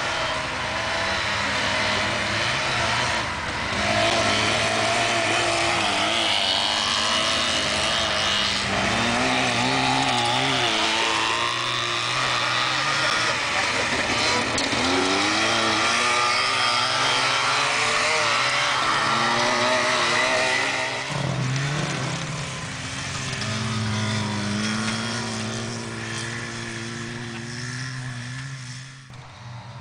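Two-stroke engines of Trabant race cars revving hard on a snowy track, their buzzing pitch rising and falling with the throttle.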